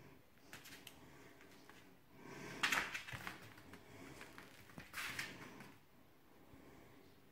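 Cocker spaniel puppy's paws scrabbling and claws clicking on a tiled floor as it plays with a small ball. There are a few light clicks early, a louder scuffling burst a little under three seconds in and another about five seconds in.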